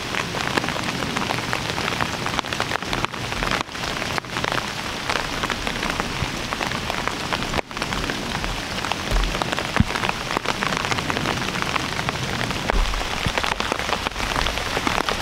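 Steady rain, with many close drops tapping on an umbrella overhead.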